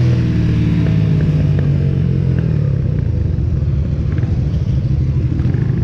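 Benelli 302R's parallel-twin engine and exhaust running loudly under way, its pitch easing down slightly in the first second, then holding steady.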